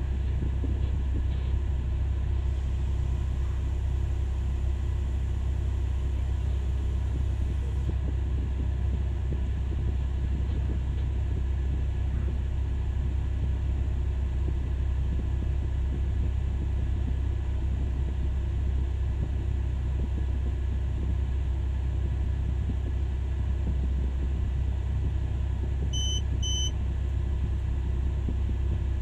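Cat 6020B hydraulic mining shovel's diesel power unit running with a steady, deep rumble as the machine travels on its tracks. Two short high beeps sound close together near the end.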